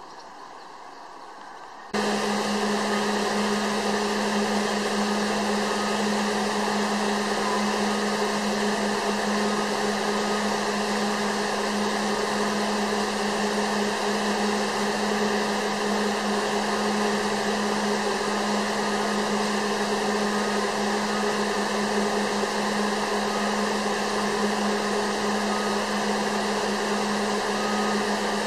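Steady machine whir with a constant low hum, starting abruptly about two seconds in and running unchanged.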